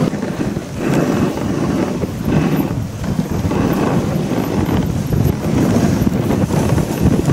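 Dog sled running over deep snow behind a team of sled dogs: the runners hiss and scrape on the snow and the dogs' feet pad along, with wind on the microphone.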